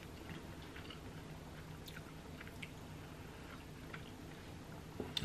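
Quiet room with a faint steady low hum and a few faint, short soft clicks.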